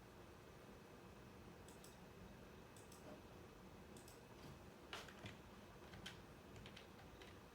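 Near silence broken by faint, sharp clicks: a few light ones in the first seconds, then a small cluster of louder ones from about five seconds in.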